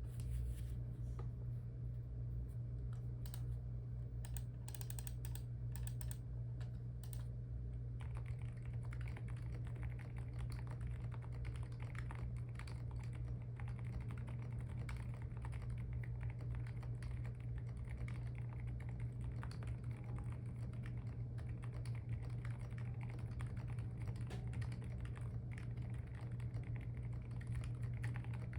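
Typing on a gasket-mounted Neo Ergo 65% mechanical keyboard with HMX Silent Sakura silent linear switches, a POM plate, full foam and KSA keycaps, giving soft, muted keystrokes. The typing is sparse for the first several seconds, then becomes fast and continuous, over a steady low hum.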